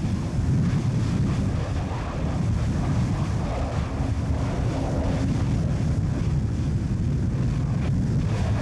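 Wind buffeting the microphone: a steady low rumble with no separate events.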